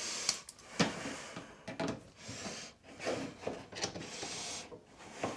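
Rubbing and scraping with scattered knocks and clicks as a stuck dryer vent part is twisted and pulled by hand. The part is jammed and does not come loose.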